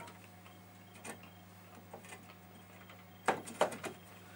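Plastic-and-metal clicks and knocks of circuit cards and their top connectors being handled and pressed into the PDP-8/e omnibus card cage: a faint click about a second in, then a quick loud cluster of clicks just past three seconds, over a steady low hum.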